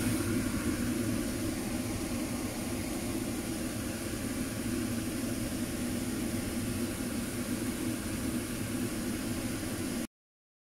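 Steady whooshing hum of a kitchen fan running, even throughout, that cuts off abruptly near the end.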